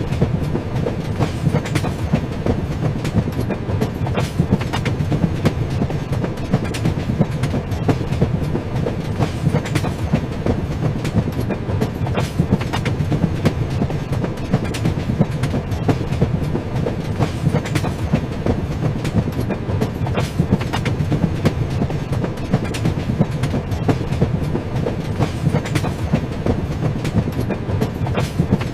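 Train running along the track: a steady low rumble with a constant patter of wheel clicks and clacks over the rails.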